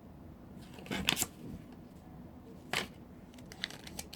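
Small blind-box packaging handled and opened by hand: quiet rustling with a short burst of crinkles about a second in, another near three seconds, and a few light ticks.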